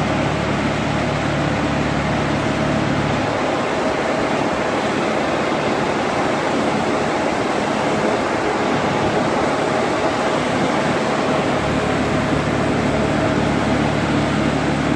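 Mitra tractor-mounted mist blower running at work: its fan gives a loud, steady rush of air with a steady whine, over the low hum of the Mitsubishi tractor's engine driving it. The engine's low note drops back for a stretch in the middle while the fan's rush stays even.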